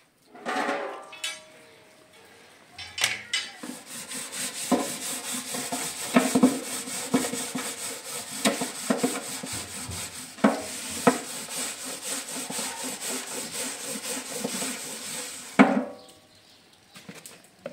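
A scouring pad scrubbing a large round hammered metal tray in quick back-and-forth strokes, a steady scratchy rasping that stops suddenly near the end with a louder scrape.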